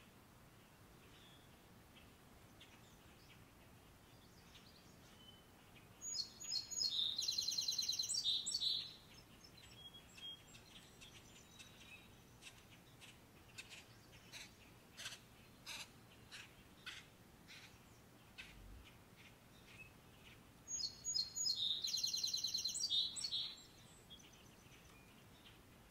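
A songbird singing two high-pitched songs about fifteen seconds apart, each lasting about three seconds, with scattered short chirps between them.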